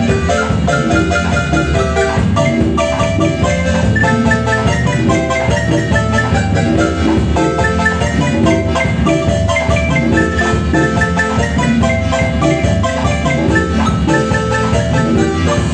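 Marimba music: fast runs of short mallet-struck notes over a steady bass line.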